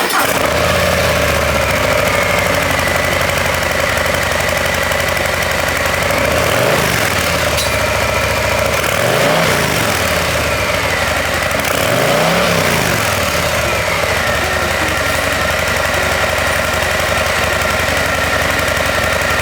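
2023 Harley-Davidson Low Rider S's 117 cubic inch V-twin idling through its stock exhaust, with three quick throttle blips that rise and fall in pitch, about seven, nine and twelve seconds in.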